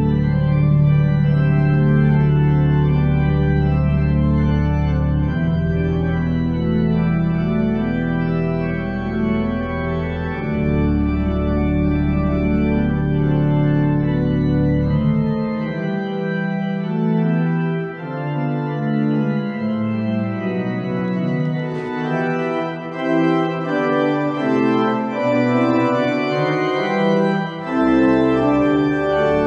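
Church organ playing a slow hymn prelude in sustained chords. The deep pedal bass drops out about halfway through and comes back in near the end.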